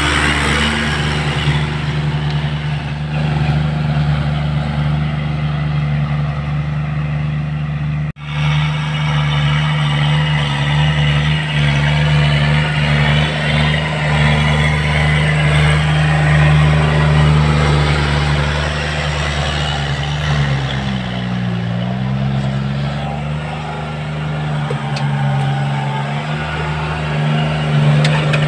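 Kubota L4018 tractor's diesel engine running at a steady working speed while pulling a rear rotary tiller through soil and stubble, with the churning of the tiller over it. About three-quarters of the way in, the engine's pitch dips briefly under load and then comes back up.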